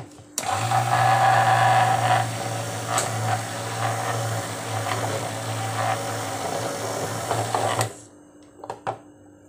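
Hand-held stick blender running in a glass bowl of cold-process soap batter (oils with lye water), blending it while it is still thin. It starts about half a second in, is loudest for the first couple of seconds, then runs steadily and switches off about eight seconds in, followed by a few light taps.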